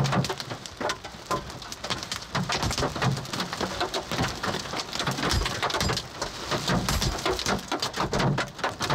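Large hailstones with rain pounding on a Subaru Crosstrek's roof and windshield, heard from inside the cabin: a dense, irregular clatter of hits with dull low thuds among them.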